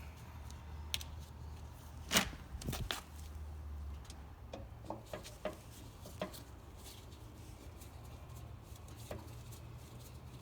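Scattered clicks and knocks of a Torx driver and screws being worked loose from a fog light housing, with the sharpest knock about two seconds in and a cluster of small clicks a few seconds later, over a low hum.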